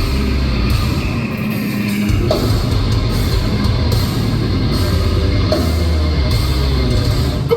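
Heavy metal band playing live, with distorted electric guitars and a drum kit, loud and continuous with a heavy low end.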